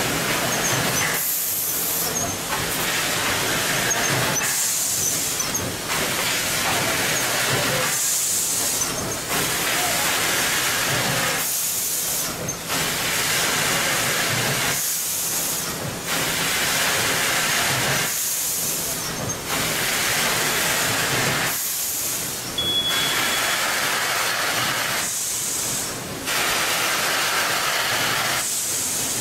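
Automatic bag-filling and bag-closing packaging line running: steady machine noise with a short hiss of compressed air about every three to four seconds as the machine cycles.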